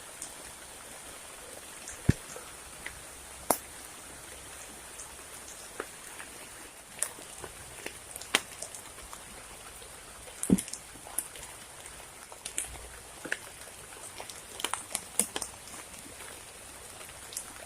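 Rain falling over a steady hiss, with single heavy drops striking close by in sharp, irregular ticks, a few of them loud.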